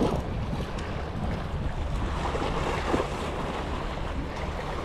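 Wind buffeting the microphone, a steady low rumble, over the wash of the sea.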